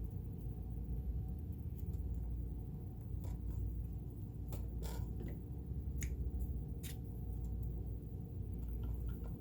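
Scattered light clicks and taps from handling and cleaning the metal parts of an Elna Supermatic sewing machine, over a steady low hum.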